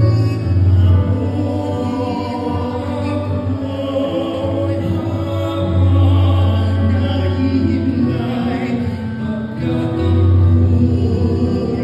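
Two male voices singing a slow Tagalog hymn into microphones over an amplified backing accompaniment, with long held bass notes that change every few seconds.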